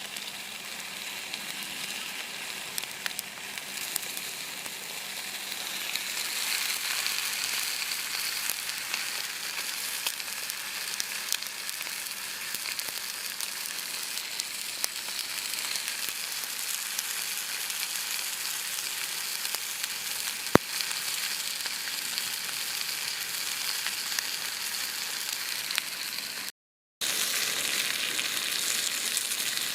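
Aberdeen Angus steak frying in a pan over a campfire: a steady sizzle with many small spitting pops, growing louder about six seconds in. There is one sharp click a little after twenty seconds, and the sound drops out for a moment near the end.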